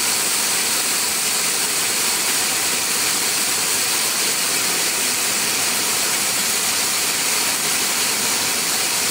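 Automatic lawn irrigation sprinkler spraying water over turf: a steady, loud hiss of water jetting out.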